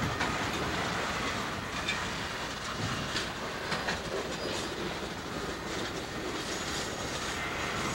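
Freight train's boxcars rolling along the track: a steady rumble with scattered clicks of wheels over the rail and a faint high wheel squeal.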